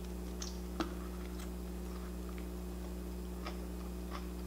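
Low steady hum with a few faint, scattered clicks.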